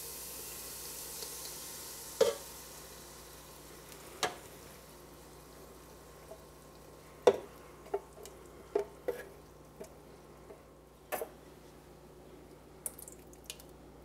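Onions and garlic sizzling in olive oil as crushed tomatoes are poured in from a can; the sizzle fades away over the first few seconds. Then come scattered light knocks as the can and a silicone spatula tap against the pot while the tomatoes are scraped out.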